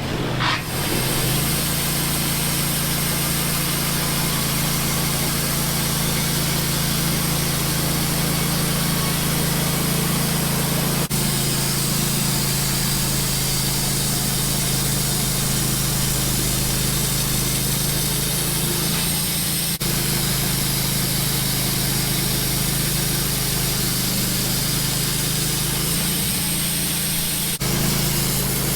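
Wood-Mizer LT15 portable bandsaw mill running steadily under load as its blade cuts a flattening pass along a white pine log.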